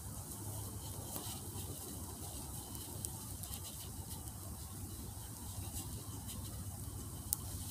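Quiet woodland ambience with faint scattered rustles and ticks, and one sharper click about seven seconds in.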